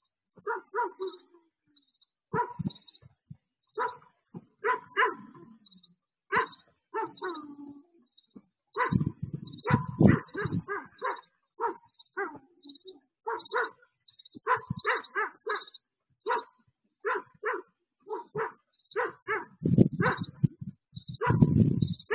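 A dog barking over and over, single barks and quick runs of barks, picked up by a security camera's microphone with a thin, narrow sound.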